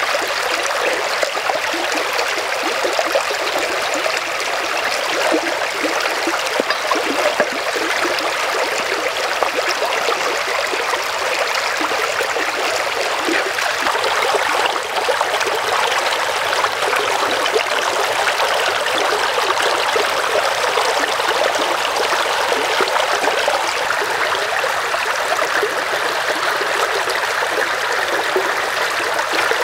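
Shallow stream flowing over rocks: a steady, even wash of running water.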